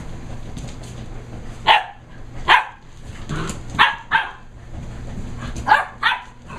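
German Shepherd puppies giving short, high play barks and yips, about six in all, several in quick pairs.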